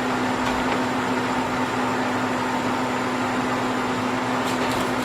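Home freeze dryer running with a steady hum and even hiss as it depressurizes at the end of its cycle, with a few faint ticks near the end.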